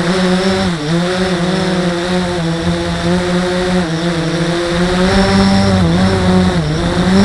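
Blade 350 QX quadcopter's electric motors and propellers buzzing in flight. The pitch dips and climbs back several times as the motor speed changes while it manoeuvres.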